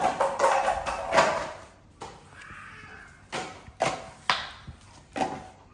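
Scuffling noise, then several separate sharp thumps and knocks.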